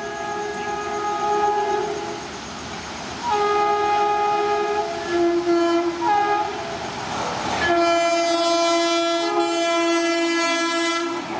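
Indian Railways express locomotive air horn sounding long chord blasts as the train approaches. One blast breaks off about 2 seconds in, the next drops in pitch partway through, and a final long blast runs until near the end. The rush of the train on the rails fills the gaps between blasts.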